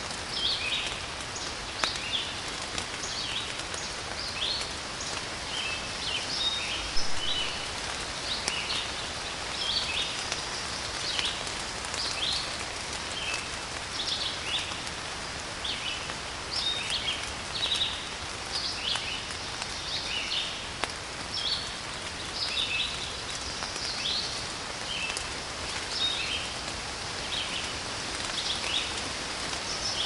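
Steady rain falling, with a few sharp drips, while small birds sing short chirping phrases every second or so.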